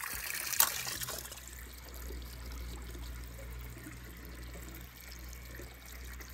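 Water trickling steadily over a low hum, with one short sharp click a little over half a second in.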